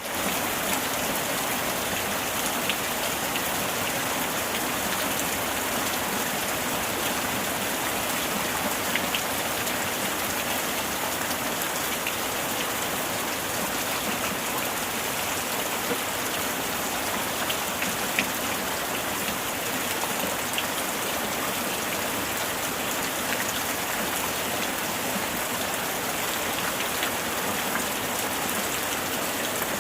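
Heavy rain falling steadily, an even hiss with scattered individual drop ticks and no thunder.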